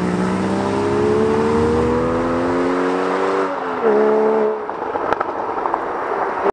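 Porsche Cayman accelerating hard away through the gears: the engine pitch climbs steadily, drops with an upshift right at the start and another about three and a half seconds in, then the sound fades as the car gets farther away.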